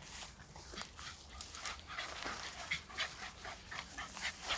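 A dog panting close by, a quick run of short breathy puffs, mixed with the rustle of plants being pushed through.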